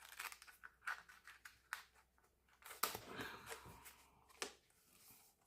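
Faint handling sounds of album packaging and photocards: scattered small clicks and taps, with a short paper or plastic rustle about three seconds in.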